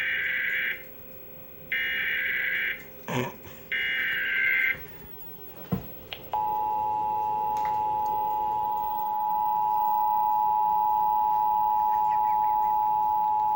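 Emergency Alert System Required Monthly Test signal. Three one-second bursts of SAME header data, screechy digital warbling, open it. After a short gap with a click or two, the steady two-tone EAS attention signal starts about six seconds in and holds.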